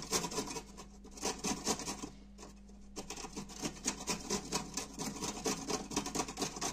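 Carrot being grated on a metal box grater resting on a wooden cutting board: rapid, repeated rasping strokes, with a short pause a little over two seconds in.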